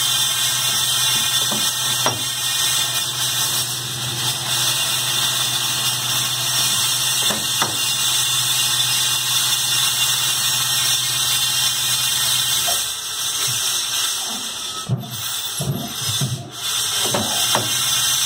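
Capstan lathe running and machining a brass part for a gas welding torch, with a steady hum and hiss from the spindle and cut. About two-thirds of the way in the steady hum drops away and a few short squeaks and knocks follow.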